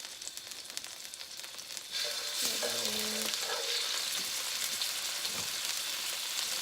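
Minced garlic sizzling in hot grapeseed oil in a wok, with stirring; the sizzle gets much louder about two seconds in.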